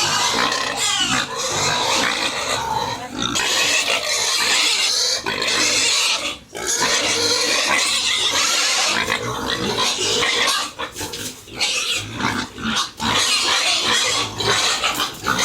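Pigs calling loudly and almost without pause, the sound reaching high in pitch, with a few brief breaks about six seconds in and again past the middle.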